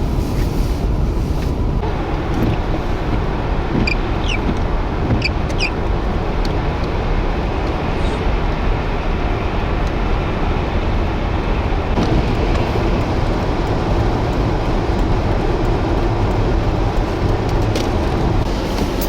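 Strong gale-force wind buffeting the microphone: a steady, loud low rumble of wind noise.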